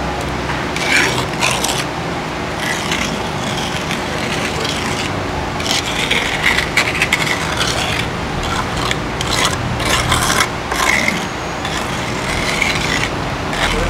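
Small metal trowel scraping and smoothing wet cement mortar, in a run of irregular strokes, some short and some drawn out over a second or two.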